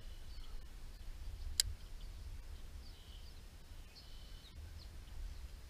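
Quiet outdoor ambience on marsh water: faint, short bird chirps over a steady low rumble, with one sharp click about a second and a half in.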